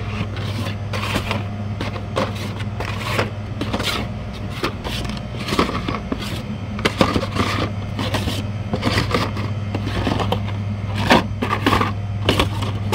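Carded Hot Wheels cars being flipped and pulled from a cardboard shipper display: irregular clicks, taps and scrapes of plastic blisters and card backs against each other and the cardboard shelves, over a steady low hum.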